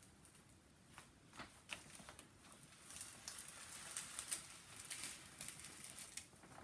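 Faint rustling and crinkling of a paper sheet being peeled back and slid off a diamond painting canvas, with a few light clicks. The rustling grows louder about halfway through.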